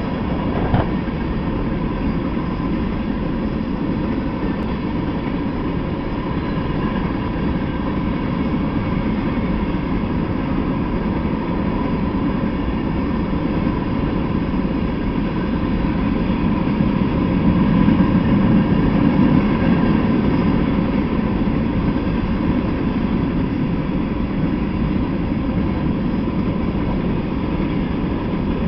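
Freight train of covered hopper cars rolling past: a steady rumble of wheels on the rails that swells a little about two-thirds of the way through.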